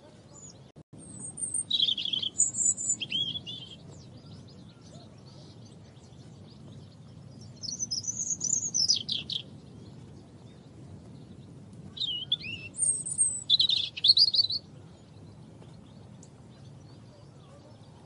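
European robin singing three short, high, warbling song phrases separated by pauses of a few seconds, over a low steady background hiss.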